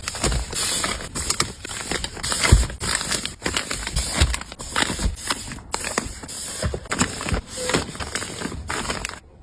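Busy handling noise: rustling and scraping with many small clicks and knocks, as toiletry products and their packaging are moved around, dropping off sharply just before the end.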